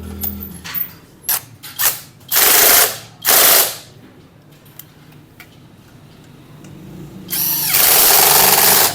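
Ratchet wrench clicking in quick runs as the handlebar centre nut and fork bolts of a 70cc motorcycle are tightened. A few light metal clinks come first, then two short runs about two and three seconds in, and a longer run near the end.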